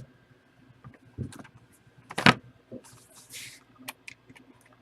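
Handling noises: scattered light clicks and taps, a louder knock a little over two seconds in, then a brief rustle.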